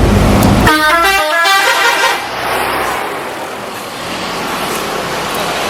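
A tour bus's telolet horn plays a quick tune of rapidly changing notes for about a second and a half. It follows a low rumble that stops as the horn starts, and gives way to steady street noise.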